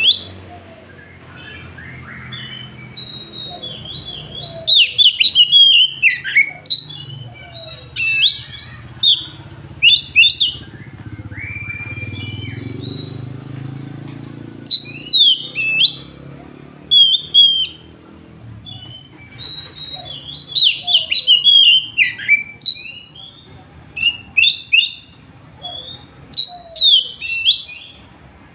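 Oriental magpie-robin singing: loud, sharp whistled phrases that sweep down in pitch, delivered in short bursts with pauses between them.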